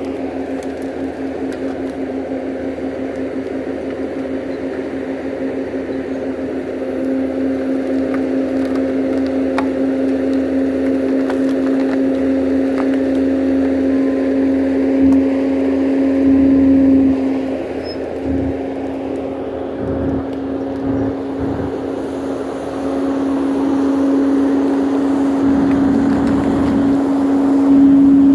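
Bobcat compact track loader's diesel engine and hydraulics running steadily under load while its front tree shear works on trees, with a constant hum on top of the engine. The machine works harder in swells around the middle and again near the end, with a few faint cracks.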